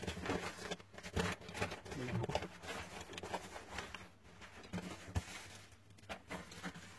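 Scattered small clicks, taps and scraping of hands working on a small device's parts with tools.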